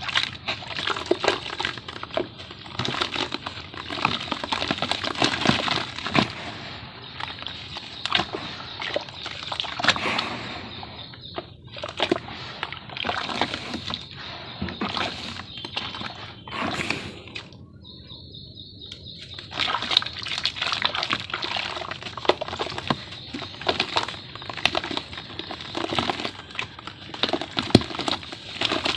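Dry sand-and-cement shapes dipped into water, crackling and crumbling as they soak, with water sloshing. There are a couple of short lulls in the crackle.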